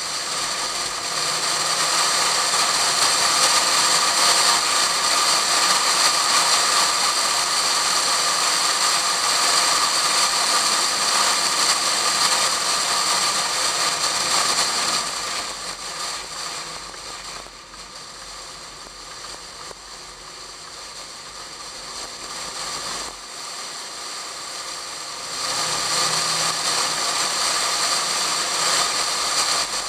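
Wind rushing over a camera in a waterproof case strapped to the outside of a Pontiac Fiero at track speed, with the car's running faint beneath it. The rush eases for about ten seconds midway through, then comes back up to full strength.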